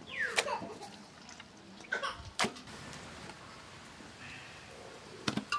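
A few scattered clicks and knocks from metal bowls and a small container being handled. There is a short falling squeal right at the start.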